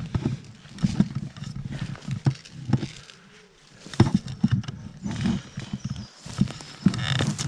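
Footsteps and rustling of undergrowth close to a body-worn microphone, uneven and irregular, with heavy breathing from the player.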